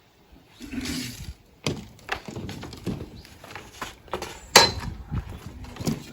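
Irregular knocks, taps and scrapes of hand work on the bus roof while the fan template is marked out, with one sharp click about two thirds of the way through.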